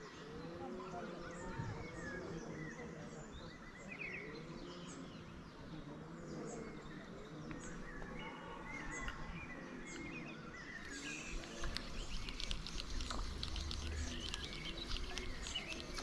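Birds singing and calling outdoors, with thin high chirps over lower, repeated arching calls. About eleven seconds in, a crackling, rustling noise with a low rumble joins them.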